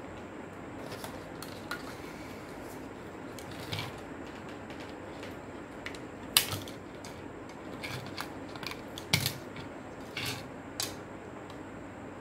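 Scattered small clicks and taps as the plastic and metal parts of a portable CD player are handled and worked with a small screwdriver, over a steady hiss. The sharpest clicks come about six and a half and nine seconds in.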